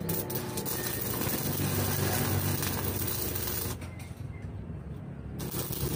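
Electric arc welding on steel: a steady crackling hiss over a low hum, the crackle thinning for about a second and a half near the end.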